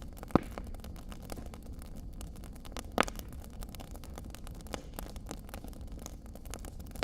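Wood fire crackling in a stone fireplace: a steady low rush of burning with many small crackles, and two loud sharp pops, one just after the start and one about three seconds in.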